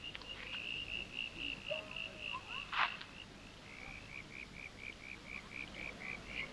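Night ambience: a small animal calling in a run of short, high chirps about four a second, which pauses briefly and resumes slightly lower. A single sharp click comes about three seconds in.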